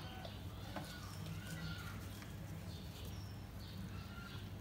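Small birds chirping in the background, short high calls several times a second, over a steady low hum.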